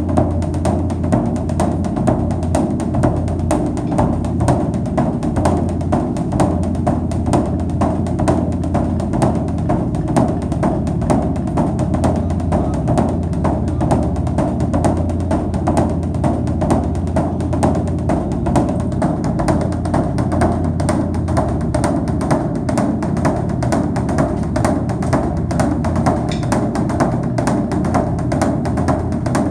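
Background music driven by a steady, fast percussion beat of drums and wood-block-like strikes over a sustained low bass.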